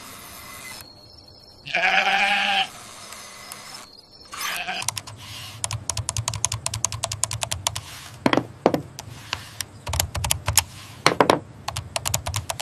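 A goat bleats once loudly about two seconds in and again briefly near four and a half seconds. After that comes a fast, irregular run of sharp clicking and ticking.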